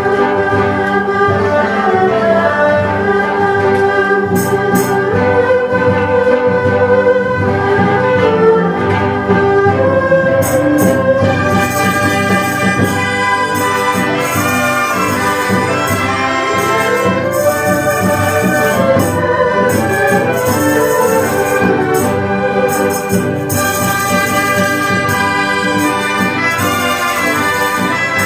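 Full Chinese traditional orchestra playing continuously: bowed huqin, plucked pipa and ruan, yangqin, winds and percussion together, with sharp percussion strikes joining about ten seconds in.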